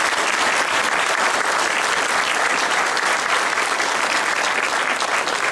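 Audience applauding steadily: dense, even clapping with no rhythm.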